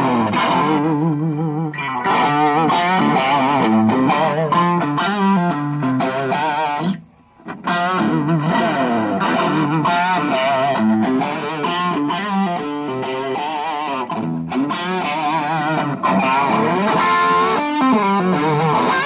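Electric guitar played through a 2-watt Vox Lil' Night Train tube amp head switched to Thick: a fat, round overdriven tone, with held notes wavering in vibrato. The playing breaks off briefly about seven seconds in.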